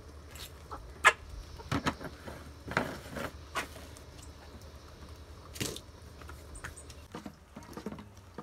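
Chicken feed being scattered and scooped from a plastic jug, with chickens pecking at it: a scatter of sharp clicks and patters, the sharpest about a second in, thinning out after about six seconds.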